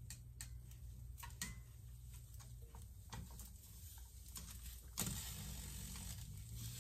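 Faint, scattered clicks of chopsticks tapping against a pan and the charred vegetables on it, over a low steady hum. About five seconds in, a steady soft hiss starts.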